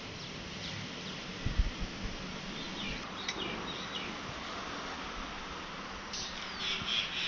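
Steady outdoor background hiss with birds chirping, the chirps coming thicker near the end, and a single low thump about one and a half seconds in.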